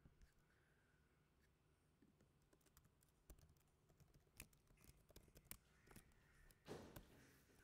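Faint typing on a computer keyboard: irregular single keystrokes and short runs of them, with a brief, louder rush of noise near the end.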